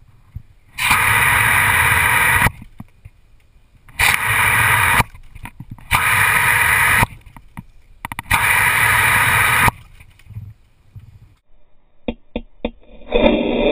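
Garden hose spray nozzle hissing in four bursts of one to two seconds as the water jet is switched on and off, with quiet gaps between them. A few sharp clicks come near the end, then a duller steady rushing sound begins.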